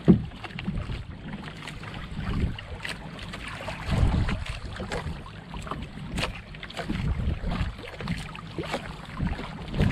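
Wind buffeting the microphone and sea water lapping around a small boat, with irregular low thumps, the loudest just after the start and about four seconds in.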